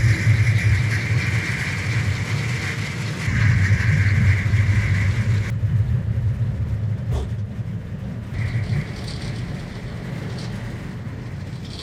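La Garrucha cable car running along its cable: a steady low rumble with a high-pitched whine over it. The whine stops about halfway through and comes back briefly later, with a click in between, and the rumble slowly fades as the car nears the station.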